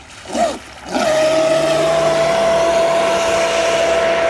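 Traxxas Spartan RC speedboat's brushless motor, on 6S LiPo, running hard. Its high-pitched whine comes in about a second in and holds a steady pitch, over the hiss of the hull skimming the water.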